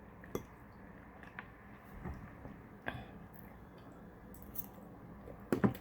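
Faint eating noises close to the microphone: scattered soft mouth clicks and squishy chewing, with a sharper pair of clicks just before the end.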